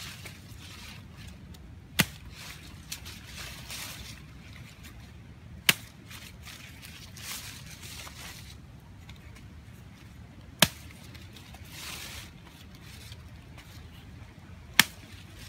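Rustling of leafy branches being handled in undergrowth, broken by four sharp snaps or chops a few seconds apart, the loudest sounds.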